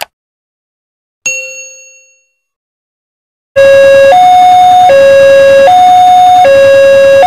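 A click and a single bell-like ding that rings away over about a second, from a subscribe-button sound effect. About three and a half seconds in, a railway level-crossing warning alarm starts, loud, alternating between a lower and a higher tone about every three-quarters of a second.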